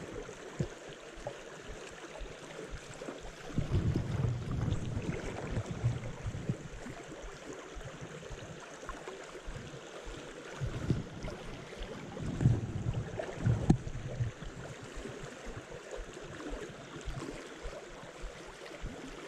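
Shallow stream riffle flowing with a steady rushing, broken by irregular low rumbles about four seconds in and again around thirteen seconds in.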